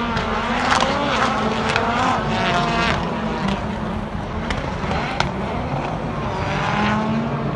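Rallycross cars' engines revving hard and dropping between gear changes as they race around the circuit, with several sharp pops scattered through, the loudest about five seconds in.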